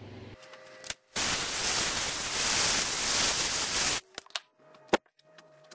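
A loud, steady hiss of rushing noise with no pitch to it, lasting about three seconds and starting and stopping abruptly. A few light clicks follow.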